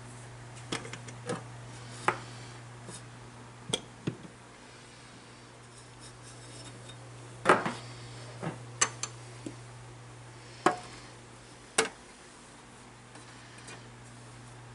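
Scattered light clicks and taps of small hard objects being handled on a workbench, a dozen or so spread irregularly, over a steady low hum.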